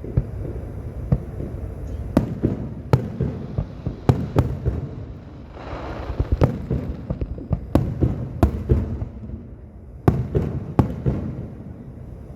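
Aerial fireworks going off: a string of sharp booms at irregular intervals, with a spell of dense crackling about halfway through.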